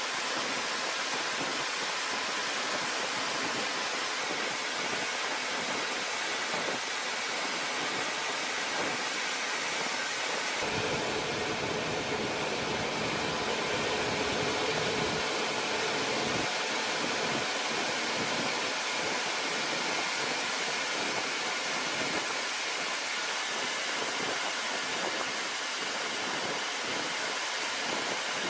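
Steady rushing engine and airflow noise of an aircraft in flight, heard from aboard the aircraft, with faint steady tones in it. The noise grows fuller and deeper about ten seconds in, then thins again about six seconds later.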